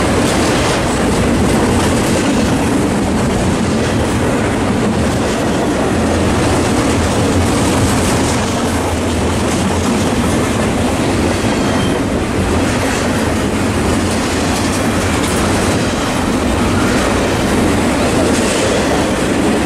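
A train rolling steadily past at close range, its wheels clattering over the rails without a break.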